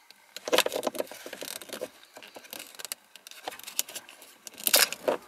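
Hands handling a plastic 12-volt power socket bracket and its wiring: a run of clicks and rattles from about half a second to two seconds in, scattered ticks after, and a louder plastic clatter near the end.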